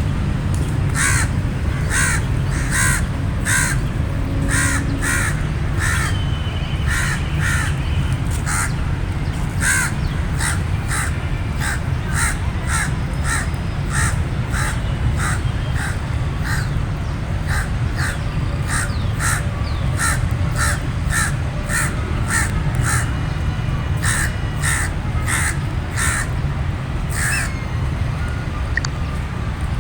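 Crows cawing over and over in a long run of short, harsh caws, about one to two a second, over a steady low rumble.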